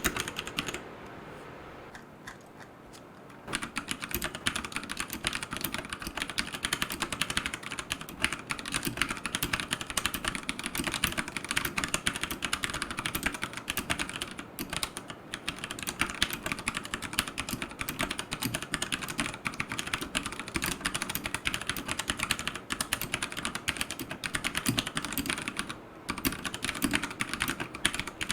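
Continuous typing on a Royal Kludge RK100 mechanical keyboard with tactile brown switches: a dense stream of key clacks, pausing for about two seconds near the start and briefly again near the end.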